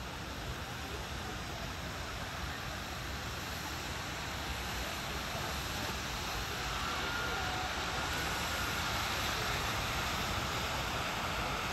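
Steady hissing rush of firework ground fountains spraying sparks, with no bangs, growing slightly louder in the second half.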